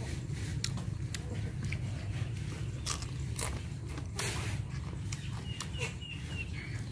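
Mouth sounds of biting and chewing a slab of boiled pork fat: irregular wet clicks and smacks, over a steady low hum.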